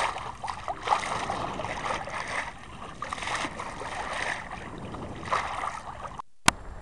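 Water rushing and splashing along the hull of a 1964 Mercator 30 sailboat under sail, swelling in surges about once a second. Near the end the sound cuts out suddenly and a single click follows.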